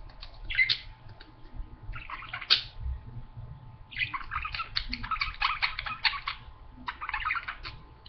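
Budgerigars chirping and chattering in short bursts, with a dense run of rapid chirps from about four seconds in to past six. A faint steady hum lies underneath.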